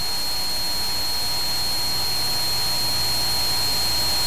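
Steady hiss with a constant thin high-pitched whine and a low hum: the noise floor of an old videotape recording, with no speech.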